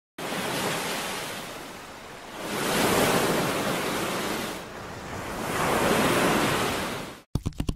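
A surf-like rushing noise that swells and fades twice, then cuts off abruptly about seven seconds in, followed by a few sharp clicks.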